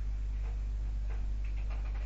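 Steady low electrical hum under a scatter of soft, irregular clicks and taps, several a second, starting about half a second in.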